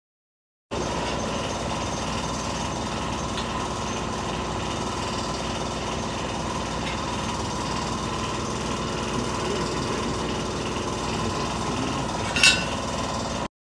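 Steady machinery noise, as from a running motor or power tool, that cuts in about a second in and stops abruptly just before the end, with one sharp knock near the end.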